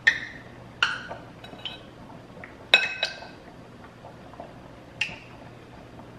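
Metal spoon clinking against a glass mixing bowl and a small bowl while scooping out flour mixture: a handful of sharp, brief clinks with a short ring, the loudest about three seconds in.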